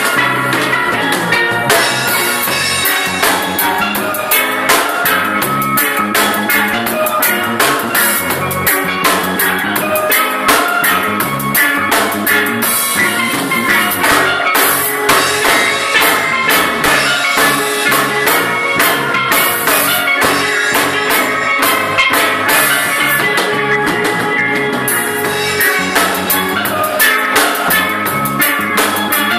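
Steel band playing a reggae-pop tune live: steel pans carry the melody over a drum kit keeping a steady beat.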